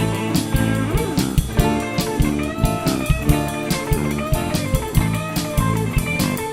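Live blues band playing a slow blues, with a lead electric guitar line of bent notes over bass and a steady drum kit beat.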